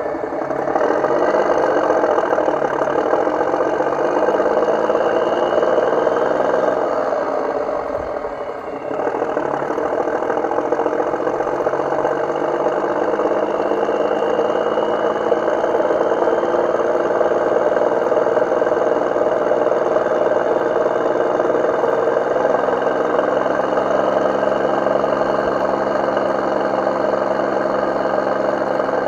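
An engine running steadily, dipping briefly about eight seconds in and then carrying on.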